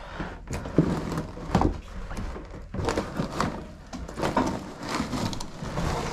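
Irregular wooden knocks and thumps, about a dozen, with scraping and rustling between them: junk and flooring being handled and moved about during cleanup.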